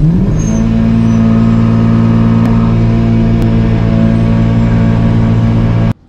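Car engine revved up and held at steady high revs, then cut off abruptly near the end.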